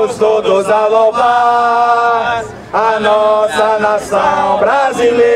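Men singing a slow Portuguese maculelê song in long, drawn-out phrases, with little or no drumming under the voices.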